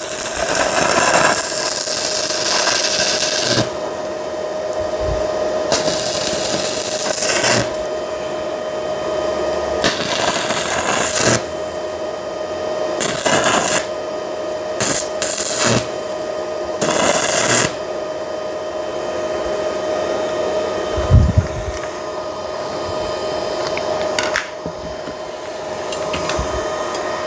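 Stick-welding arc from a 110 V inverter welder crackling and hissing, struck and run in several short bursts over the first eighteen seconds or so. A steady tone runs underneath the whole time, and there is a single low thump a few seconds after the last burst.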